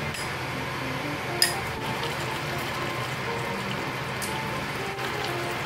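Soft background music over a steady hiss of food cooking, bubbling or sizzling, with one sharp click about a second and a half in.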